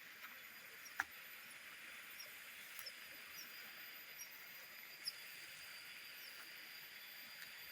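Faint forest ambience: a steady high insect drone, with a few short high squeaks and a sharp click about a second in, and another about five seconds in.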